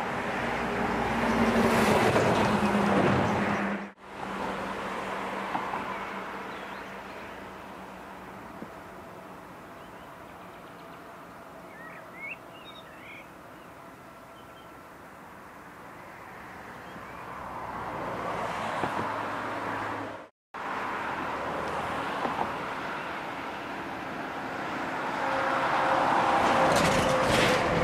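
An electric locomotive running past on the tracks. Then a quieter stretch with a few bird chirps while a Class 423 S-Bahn electric multiple unit stands at the platform. Then the S-Bahn pulls away and passes, growing louder, with a steady motor whine near the end.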